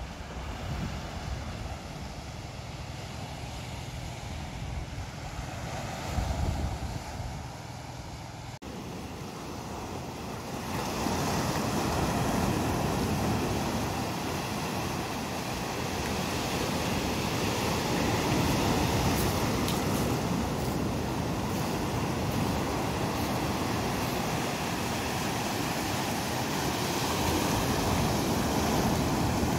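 Sea waves breaking and washing over a rocky, pebbly shore, growing louder and fuller from about ten seconds in. Before that the surf is fainter under low wind rumble on the microphone.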